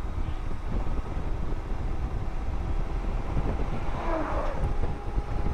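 Wind rushing over the microphone and the ridden motorcycle's road and engine noise, as a loaded semi-trailer truck passes the other way, its sound briefly swelling about four seconds in.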